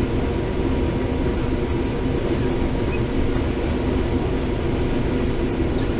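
Case IH 7130 combine running steadily while harvesting corn: a constant, even machinery drone.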